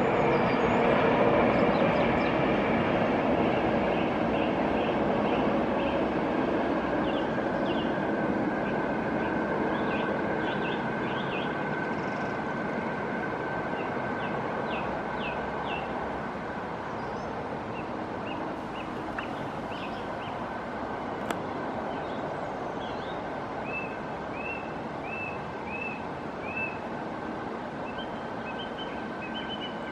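A steady rumbling noise that slowly fades, with small birds chirping over it: scattered chirps at first, then a run of about five short rising notes near the end.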